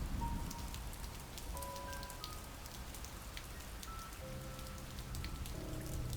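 Steady rain with scattered drops ticking, under slow ambient music: sparse held notes at changing pitches over a low drone.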